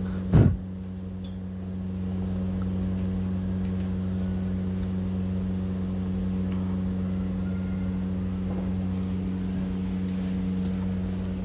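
Steady machine hum made of several even tones, with a sharp knock about half a second in and a few faint clicks of bolts and tools being handled at a truck gearbox.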